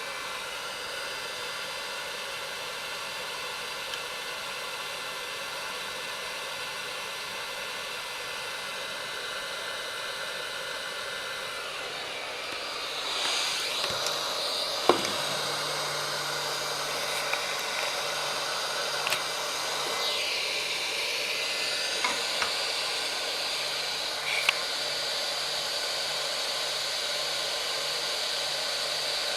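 Hot-air rework gun of a Gordak 863 soldering station blowing steadily, its airflow noise getting louder and brighter about 13 seconds in. A few light clicks and a faint pulsing hum sit under it in the second half.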